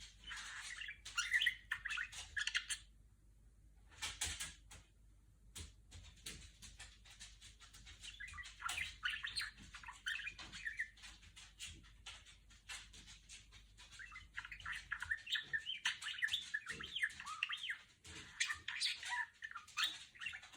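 A female budgerigar chattering in several spells of quick chirps and warbles mixed with short ticking clicks, with brief pauses between the spells.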